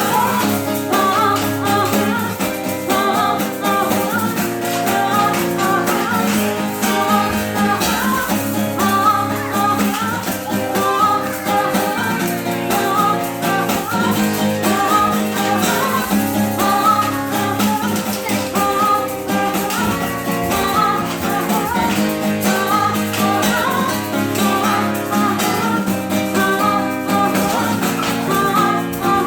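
Live acoustic music: acoustic guitar playing a repeating picked figure.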